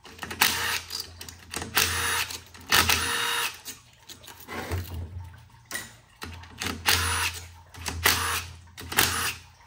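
Air ratchet running in a string of short bursts, spinning bolts out of a Chevrolet 700R4 automatic transmission during teardown.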